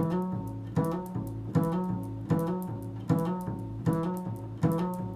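Improvised instrumental music: a plucked string instrument sounds the same low chord over and over, about seven strokes evenly spaced, each ringing and fading before the next.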